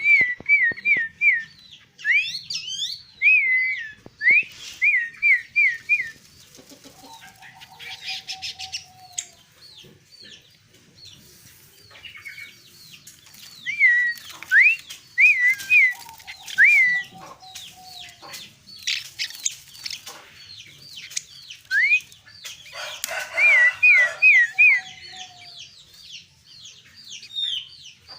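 Sooty-headed bulbul singing in repeated bursts of quick, hooked whistled notes. A lower, slightly falling call from another bird comes three times between the phrases.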